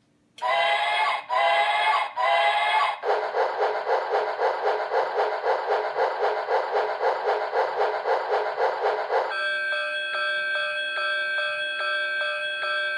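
Electronic train sound effect from a 1996 train wall clock's hourly chime: three short whistle toots, then a fast rhythmic chugging of about five beats a second, then, about nine seconds in, a steady ringing bell tone struck about twice a second.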